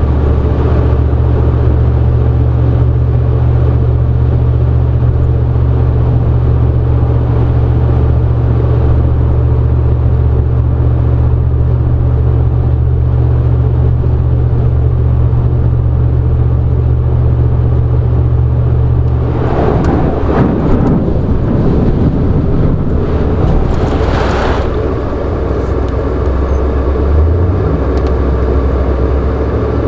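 Car driving with a steady, low engine and road rumble. About two-thirds of the way through, several seconds of louder rushing noise rise over it, loudest just before it fades, and then the steady rumble goes on.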